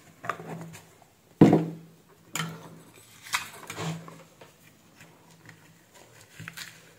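Handling noise on a workbench: a series of irregular knocks and clicks as a computer mouse's circuit board and cable wires are picked up and handled, the loudest knock about a second and a half in.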